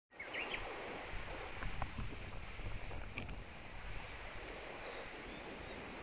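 Rushing river water with gusty wind buffeting the microphone; a few short high chirps near the start.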